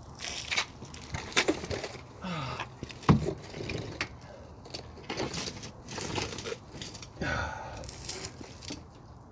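Metal hand tools clinking and rattling in irregular bursts, with one sharp knock about three seconds in.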